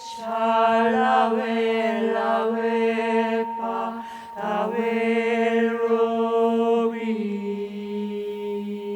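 Voices singing sustained, chant-like tones in a slow vocal piece, several pitches layered over a low held drone. The voices break off briefly about four seconds in, then settle into a steadier held chord near the end.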